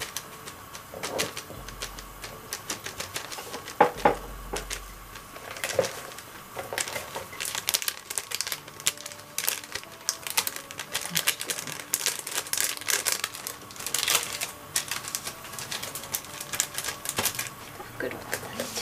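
Thin plastic packet of dried bonito flakes crinkling as it is shaken and squeezed out over a plate, a rapid run of small clicks and crackles.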